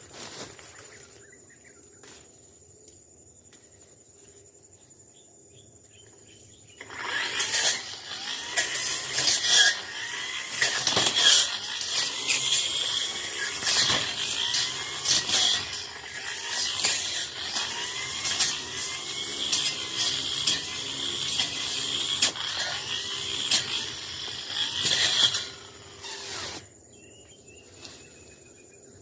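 Tanzu brush cutter cutting through scrub, a loud noisy run full of sharp clicks that starts about seven seconds in and stops shortly before the end. Before and after it there is only a faint, steady, high-pitched insect drone.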